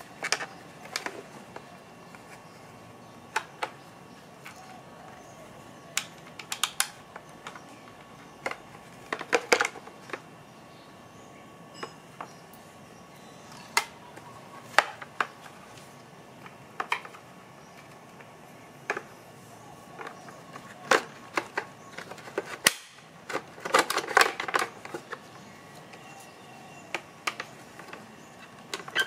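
Irregular plastic clicks and knocks from a car's power-folding side-mirror housing being handled and taken apart by hand, with two denser runs of rapid clicks, one about a third of the way in and one near the end.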